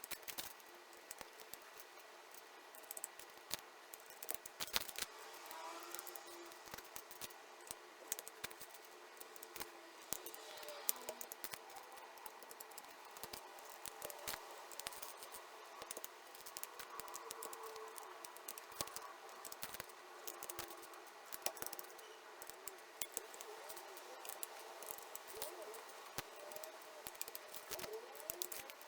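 Irregular small clicks and taps of plastic keycaps and keyboard parts being handled and pressed on a Keychron K1 keyboard.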